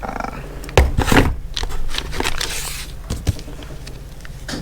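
Metal ratcheting box-end wrenches being handled: a few sharp knocks and clinks, with scraping and rustling in between.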